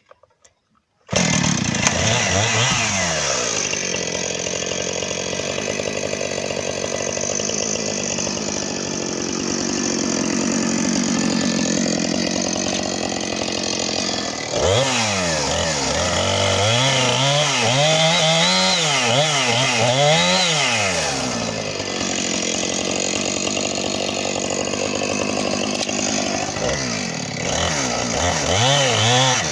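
Husqvarna 460 Rancher two-stroke chainsaw running loud as it cuts a log, starting about a second in. It holds a steady pitch for a long stretch, then its engine speed rises and falls several times in a row, and again near the end.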